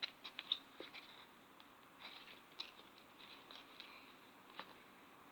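Faint, irregular small clicks and crackles of fingers handling slime in an open plastic tub, most of them in the first second, with a few more scattered later.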